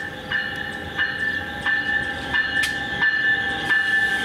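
NJ Transit locomotive's bell ringing steadily, about three strikes every two seconds, as the train approaches, over the low running rumble of the train.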